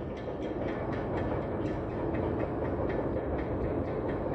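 Steady low mechanical rumble with faint scattered ticks, the sound of machinery running in the background.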